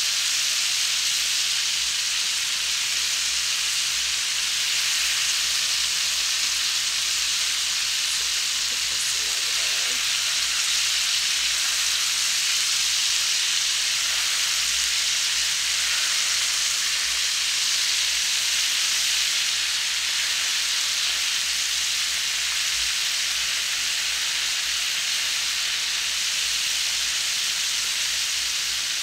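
Flour-coated chicken pieces deep-frying in hot oil in a cast-iron skillet: a steady, even sizzle of bubbling oil.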